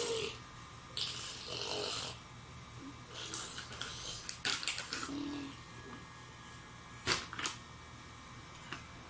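Irregular breathy, rustling noises with a couple of short vocal sounds from a baby and two sharp clicks about seven seconds in.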